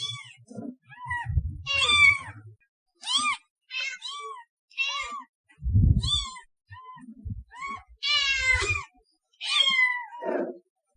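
Cats meowing, a string of about ten short separate meows, some high and thin like a kitten's, with dull low thumps under a few of the calls.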